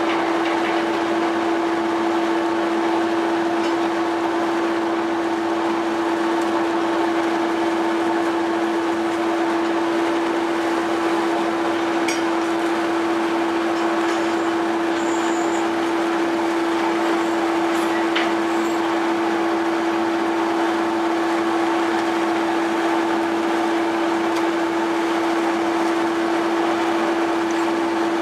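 Fishing-boat machinery running with a steady, even drone: a constant hum holding one pitch with a rushing noise above it, unchanging throughout.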